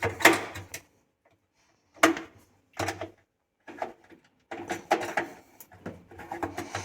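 Plastic lint filter of a top-load washing machine being handled and unclipped: a string of short clicks and plastic rattles, coming closer together in the second half.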